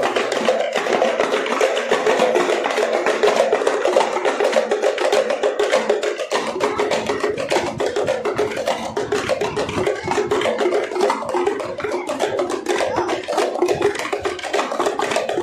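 A group of parai (thappu) frame drums beaten with sticks in a fast, continuous, dense rhythm.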